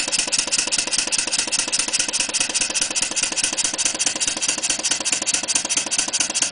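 Clarkson model vertical steam engine running on compressed air in reverse, its exhaust puffing in a rapid, even beat.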